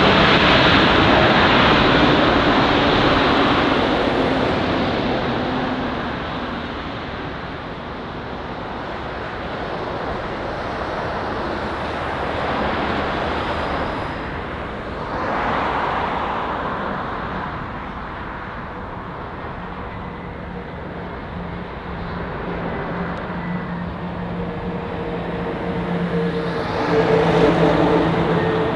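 Jet airliner engines during landings. A Boeing 777-300ER's engines are loud at first, then fade as it rolls out. After an abrupt change, a second twin-engine airliner approaches and touches down, its engine noise rising near the end with a steady hum.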